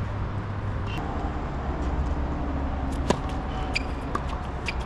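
Low steady rumble of a vehicle engine going by, with one sharp crack of a tennis ball struck by a racket about three seconds in, followed by a few lighter ticks.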